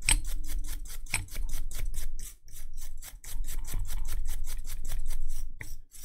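Toothbrush bristles scrubbing a circuit board wet with isopropyl alcohol, brushing away leftover solder flux: quick scratchy back-and-forth strokes at about six a second, with a short break a little over two seconds in.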